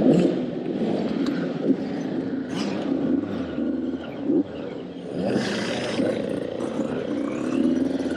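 Youth dirt bike engine revving and rising and falling in pitch as the bike is ridden round a dirt track, heard close from its own handlebars, with other bikes' engines mixed in.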